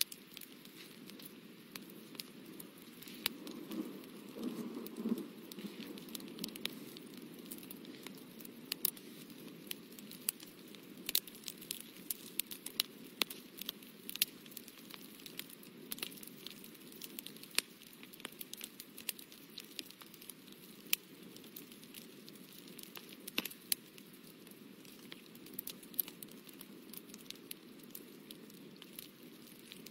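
Fine watercolour brush working on paper close up: irregular light clicks and ticks over a soft rustle, the rustle strongest about four to five seconds in.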